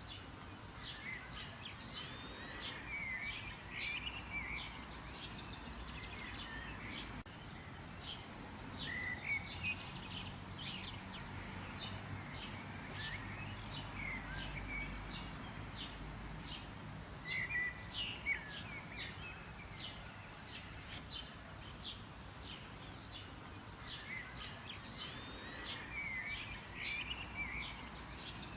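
Several birds chirping and calling, a dense, overlapping chorus of short, quick chirps and twittering notes, over a faint low background rumble.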